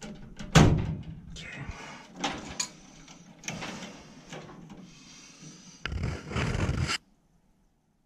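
Close-up handling noises from hand work on furnace wiring: irregular knocks, clicks and rustling of wires and tools, with a sharp knock about half a second in. The sound cuts off suddenly about a second before the end.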